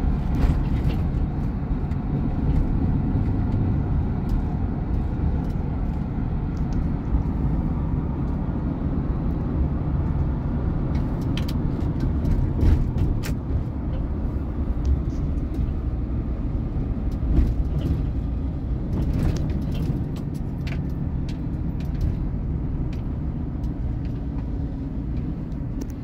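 Vehicle cabin noise while driving: a steady low engine and road rumble, with a few light clicks or rattles here and there.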